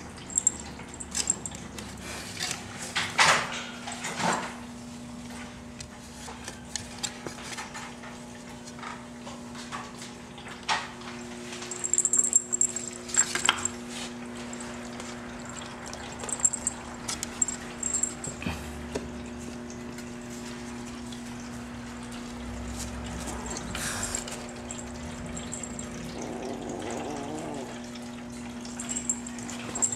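A Ragdoll kitten's claws scratching and clicking on wooden louvered shutters as it paws and climbs at the slats: scattered knocks and rattles at irregular moments, over a steady low hum.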